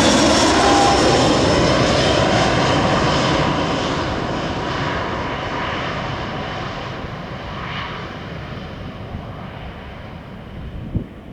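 Airbus A319's twin IAE V2500 turbofans passing on landing approach and then moving away. The engine noise with its high whine fades steadily and loses its treble, and a tone slides down in pitch near the start. A short knock near the end.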